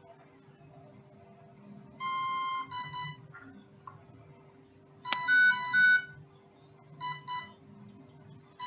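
Beep tones from the mini Cessna's brushless motor electronic speed controller (ESC), played in three short groups about 2, 5 and 7 seconds in, each a held tone followed by shorter ones. A sharp click comes just before the loudest group, and a faint steady hum runs underneath. The beeping comes from the ESC that is giving trouble.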